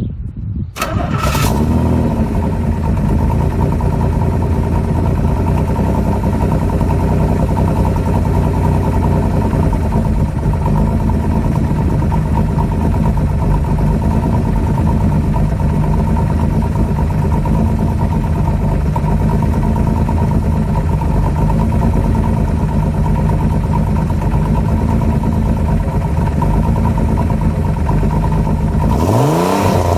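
Pontiac Fiero engine and exhaust idling steadily after coming in about a second in, then revving up and down briefly near the end.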